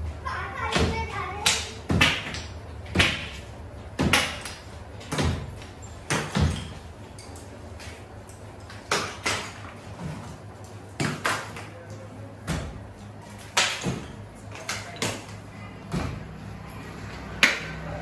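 Sharp, irregular cracks and knocks, roughly one a second with a short lull about halfway, as water-damaged false-ceiling board is pulled and broken away from its metal frame by hand.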